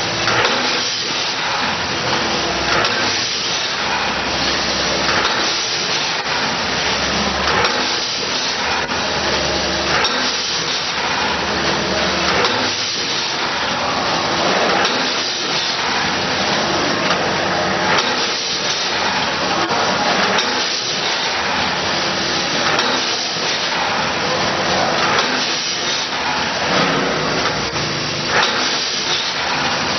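Vertical form-fill-seal seed and feed packaging machine running. A knock repeats about every second and a half over a steady machine noise, the rhythm of its bagging cycle.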